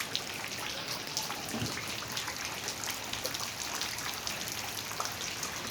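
Steady rain falling, with a dense patter of individual drops hitting a hard surface.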